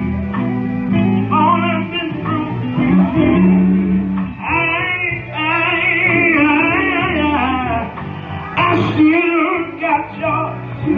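Live gospel band music with electric guitar and bass, and a voice singing wordless, wavering lines over it.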